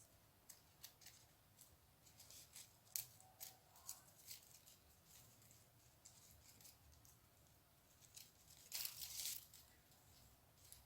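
Faint scattered crackles and rustles of paper raffia yarn being pulled through stitches with a crochet hook, with a longer, louder rustle near the end.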